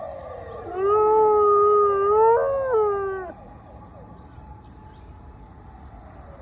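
A borzoi howling along with a siren: one long howl starting about a second in and lasting about two and a half seconds, steady at first, then rising and breaking in pitch just before it stops. The siren's faint wail sounds under it and afterwards.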